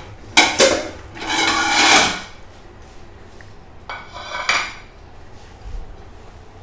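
Plates clattering on a granite countertop: two sharp knocks early on, a second of dry rustling, then a plate set down with a short ringing clack about four seconds in.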